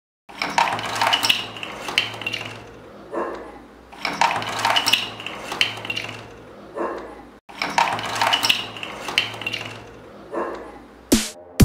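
Plastic bottle caps sliding out of a tipping cardboard dump-truck bed and clattering onto a tabletop: rattling clicks that come in three similar runs of about three seconds each, over a low steady hum.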